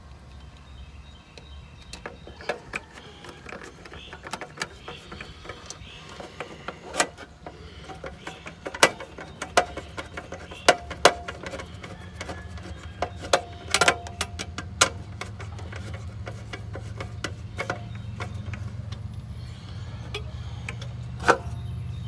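Irregular clicks, taps and rattles of wires and small metal parts being handled inside an air-conditioner condenser's control panel while its run capacitor is remounted. A low rumble grows louder from about halfway.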